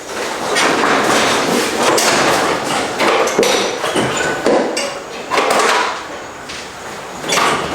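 A run of loud knocks and bangs, irregularly spaced about once or twice a second, with clattering between them.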